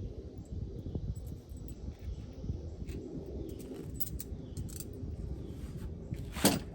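Light metallic clinks and handling noise of bolts and hand tools being worked on a step-rail bracket under a pickup's frame, with one sharp metal clank near the end.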